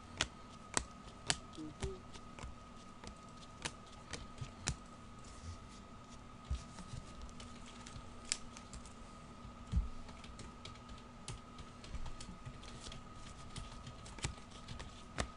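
Trading cards being flicked through, slid and set down one by one by hand, giving scattered light clicks and snaps over a faint steady electrical hum.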